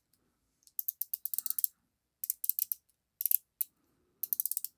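Unidirectional dive bezel of a Nove thin diver watch being turned by hand. Its ratchet clicks rapidly in four short runs of clicks, with brief pauses between them.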